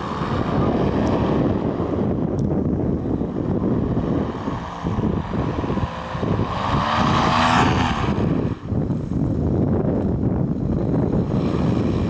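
Strong wind buffeting the microphone over the drone of a paramotor trike's propeller engine. About six seconds in, the engine swells and drops in pitch as the trike passes close by.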